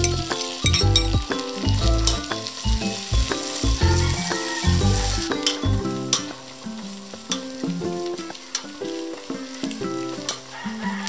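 Sliced mushrooms sizzling in hot melted butter with garlic and onion in a pot, stirred with tongs. The sizzle is strongest in the first half and fades about halfway through. Background music plays throughout.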